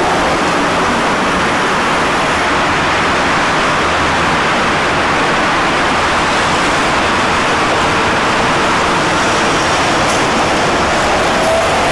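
A 1950s ex-Vestische tram running past on street track: a steady, loud rushing noise of wheels and running gear, with no clear rhythm.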